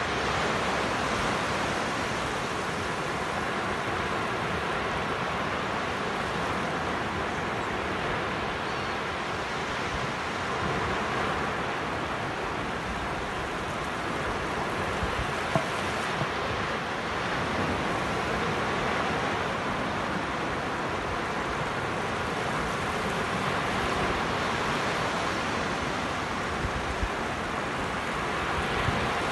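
Surf breaking and washing up a sandy beach: a steady wash of noise that swells and eases with each wave. Wind buffets the microphone underneath, and there are a couple of brief clicks about halfway through.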